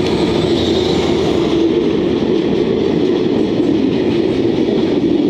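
A JR Freight container train rolls close past: a towed, unpowered DE10 diesel locomotive and then loaded container flat wagons. Their wheels on the rails make a loud, steady rumble.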